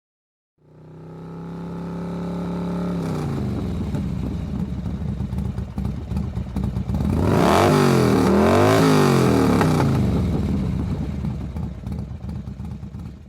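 Motorcycle engine running, fading in, then revved up and down several times, loudest in the middle, before fading out.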